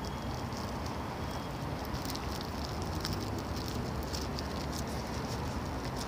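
Steady low rumble of city traffic, with scattered faint crackling ticks over it.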